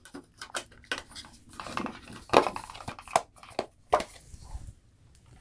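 A metal steelbook disc case and its plastic disc tray being handled and closed: a string of irregular clicks, taps and clacks, with a few sharper clacks in the middle.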